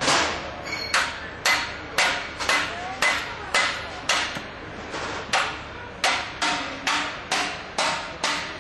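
A hammer striking repeatedly in a steady rhythm, about two blows a second, each blow ringing briefly.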